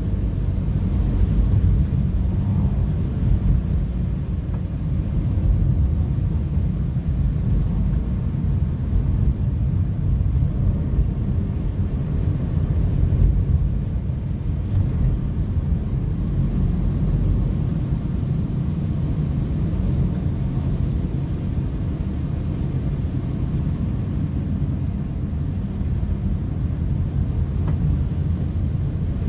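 Steady low rumble of a moving car heard from inside the cabin: engine and tyre noise on a wet road.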